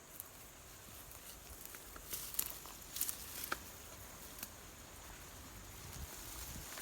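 Faint outdoor rustling with a handful of sharp crackles and ticks about two to three and a half seconds in.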